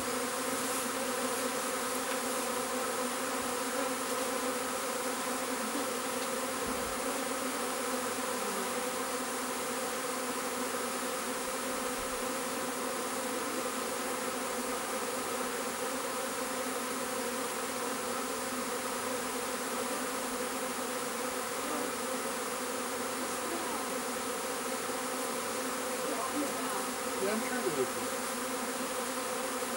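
Honeybee swarm buzzing steadily, a many-voiced hum of hundreds of bees flying around and settling into a swarm trap as the swarm moves in. Near the end a single bee's buzz passes louder and closer, rising and falling in pitch.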